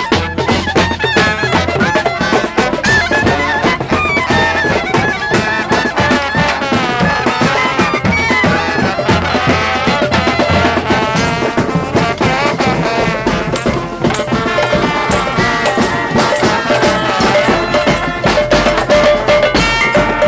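A live street brass band playing: horns carry a tune over steady drumming.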